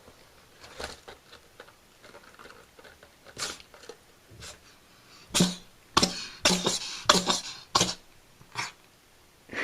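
Cat sneezes: a run of short, sharp sneezes, faint at first, then louder and coming in quick succession from about halfway through.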